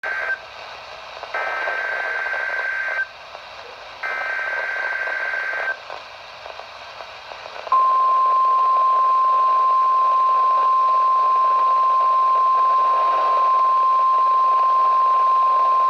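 NOAA Weather Radio test signal heard off a receiver: the end of one SAME digital header burst, then two more buzzy data bursts of just under two seconds each with radio hiss between them. About eight seconds in, the steady 1050 Hz warning alarm tone starts and holds.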